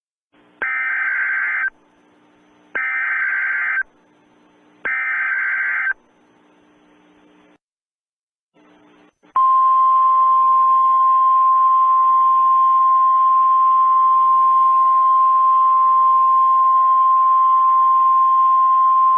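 Emergency Alert System alert tones: three one-second bursts of the coded data header, about two seconds apart, then after a short gap a single steady attention tone that holds for about ten seconds.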